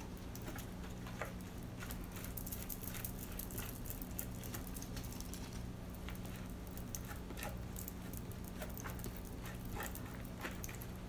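Faint, scattered ticks and light scrapes as a wooden craft stick and gloved fingers spread a wet sand-and-resin paste over a plastic-wrapped plate, over a steady low hum.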